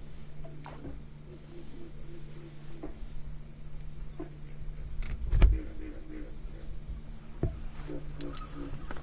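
Night insects, cricket-like, trilling steadily at a high pitch, over a low steady hum. A single loud thump comes about halfway through, and a lighter knock follows.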